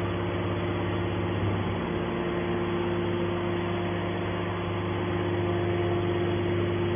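Steady machine hum with constant low tones, holding level throughout.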